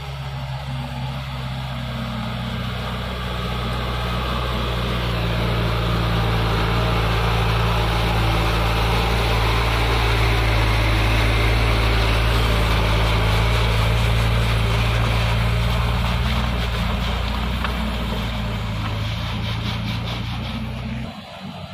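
Diesel engine of an Isuzu Elf 125 PS light truck pulling hard up a slippery mud slope. It grows louder as the truck passes close by, then eases as the truck climbs away, and drops off abruptly near the end.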